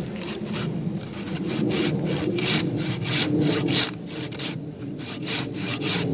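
Silky BigBoy 360 mm folding hand saw, a Japanese pull-stroke saw worked with both hands, cutting into a fallen log in quick, even back-and-forth rasping strokes, with a short break about two-thirds through.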